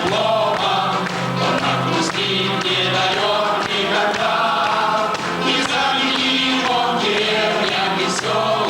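A group of voices singing a song together in chorus over backing music.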